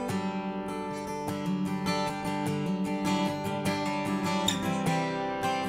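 Worship song music: an acoustic guitar strumming chords steadily.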